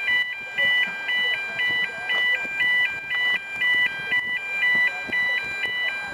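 Electronic beeping tones, several pure pitches switching back and forth about four times a second in a repeating melodic pattern, like a simple synthesised tune or ringtone, over faint background noise.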